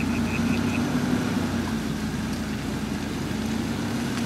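Range Rover Sport engine running steadily as the vehicle drives slowly out of a deep mud hole.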